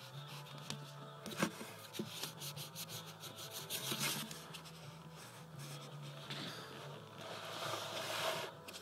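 Foam sword rubbing and scraping on a wooden floor while a cat bites and claws at it. Scratchy rustling with many small clicks, a sharper knock about a second and a half in, and a longer scrape near the end.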